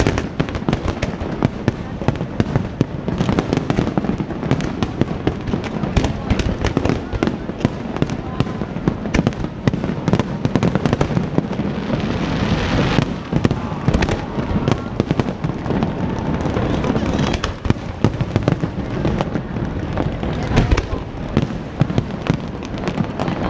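Fireworks display: a dense, continuous barrage of bangs and crackles, with a stretch of fizzing crackle about halfway through.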